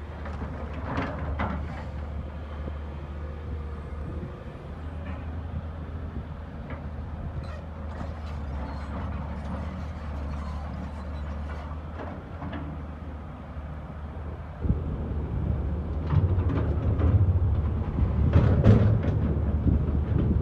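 Heavy diesel machinery running with a steady low drone, with scattered knocks and clatter. It gets louder about three-quarters of the way through, with more clatter after.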